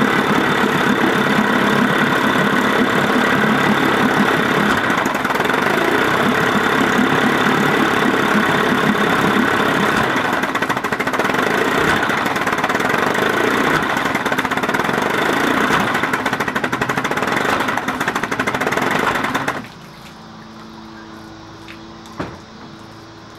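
A 1956 Evinrude 15 hp two-stroke twin outboard running at idle. It is the engine that the owner says gives an occasional loud clunk and a near-stall at cold idle. The engine stops suddenly near the end, leaving a faint low hum and one click.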